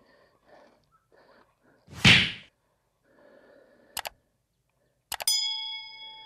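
Subscribe-button animation sound effects: a short loud whoosh about two seconds in, a quick double mouse click about two seconds later, then another click and a bell-like notification ding that rings on for more than a second.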